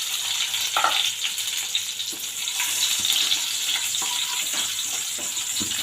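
Cashew nuts frying in hot ghee in a pan: a steady sizzle with small scattered crackles.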